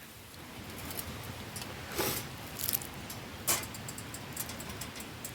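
A few light metal clinks of a camping pot's lid and wire handle being handled, over a steady hiss and crackle of the campfire.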